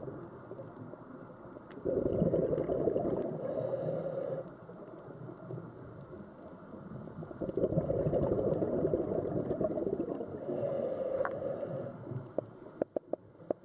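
Scuba diver breathing through a regulator underwater: two long bursts of exhaled bubbles, starting about two seconds and seven and a half seconds in, with scattered faint clicks in between and more near the end.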